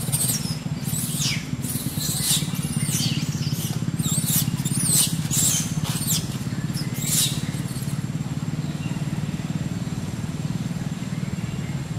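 Baby macaque screaming in a rapid run of shrill, downward-sweeping squeals that stop about seven seconds in. Underneath is a steady low hum of a running engine.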